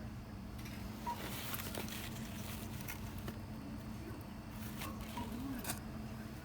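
Shop ambience: a steady low hum with scattered light clicks and taps, several of them in the second half.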